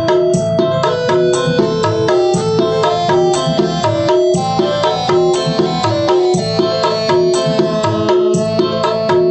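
Recorded music played loud through a two-way speaker with an 8-inch woofer and a round horn tweeter: a song with a quick, steady drum beat and a repeating melody.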